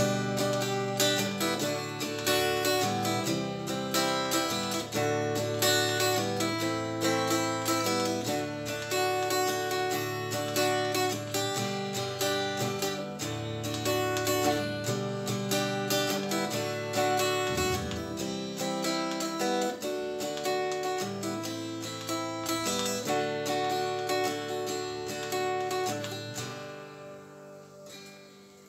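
Guitar strumming a steady chord pattern, the instrumental ending of a song, with low notes held underneath; it fades out over the last two or three seconds.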